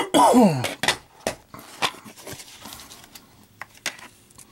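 A plastic DVD case being handled and opened, with a series of sharp plastic clicks and knocks. It opens with a brief voice sound that slides steeply down in pitch.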